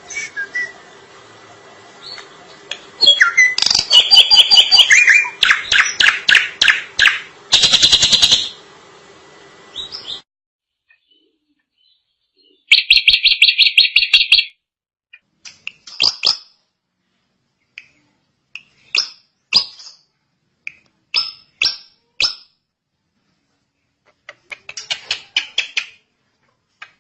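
Drongo (srigunting) singing in a loud, varied run of rapid repeated notes and chattering phrases. After a pause, a fast stuttering trill follows, then short sharp whistled notes and chips spaced a second or two apart.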